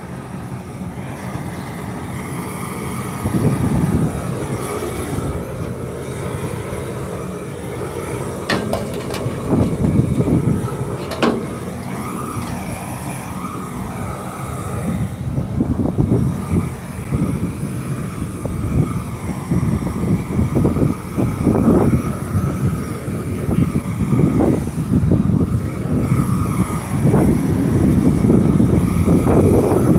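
Propane torch burning with a steady, uneven rumbling flame as it heats old asphalt to soften it for reshaping. Two sharp clicks come about a third of the way in.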